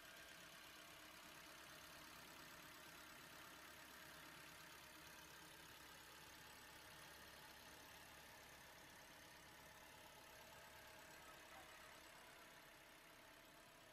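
Near silence: a faint steady hiss, easing slightly near the end.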